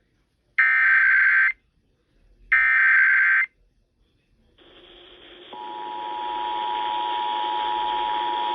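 The second and third bursts of an Emergency Alert System SAME header: screechy digital data tones, each about a second long. After a short gap a hiss rises, and about five and a half seconds in the steady two-tone EAS attention signal begins and holds. Together they mark the start of a broadcast emergency alert.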